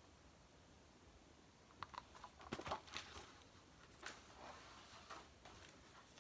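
Faint handling of a picture book: soft paper rustles and clicks of pages being turned, starting about two seconds in after a near-silent start.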